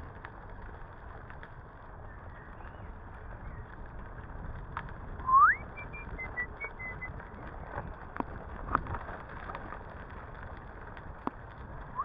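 Bicycle rolling along a gravel path, a steady rumble of tyres and wind with scattered small clicks and rattles. About five seconds in comes one loud, short whistle rising sharply in pitch, followed by a few short, fainter high chirps.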